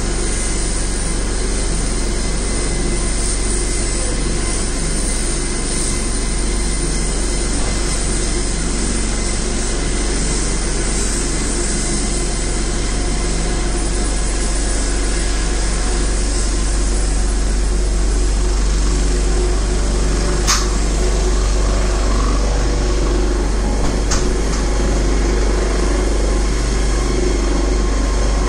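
Airbus AS365 Dauphin twin-turbine helicopter running on the pad with its main rotor turning: a loud, steady rotor and turbine noise. It grows a little louder in the second half as the helicopter lifts off the pad near the end.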